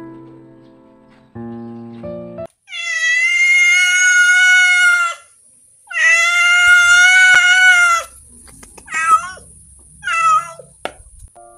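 Domestic cat meowing: two loud, long drawn-out meows of about two seconds each, then two short meows. Piano-like background music plays at the start and stops before the meows.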